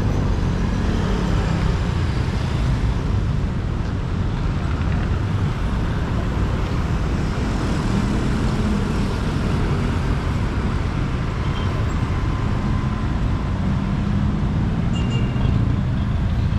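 A motor vehicle's engine running with road and traffic noise, steady throughout.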